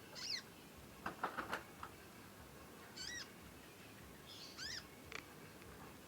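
Young hand-raised songbird giving short, sharp 'cet' calls that slide quickly down from very high pitch, three of them a second or two apart. A quick flurry of short clicky chips comes about a second in.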